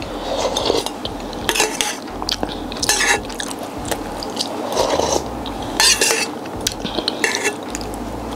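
Tableside eating sounds: irregular clinks and clatter of dishes and cutlery, with rustling of food packaging.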